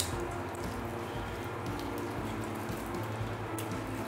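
Steady low kitchen hum under a faint crackly patter, with a few light ticks.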